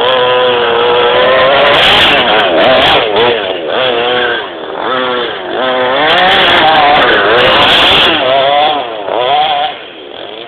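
Petrol two-stroke engine of an FG radio-controlled monster truck revving up and down over and over, its pitch rising and falling about once a second.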